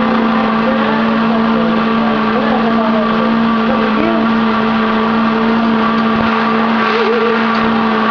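Electric blender motor running steadily: a loud, constant whine that holds one pitch.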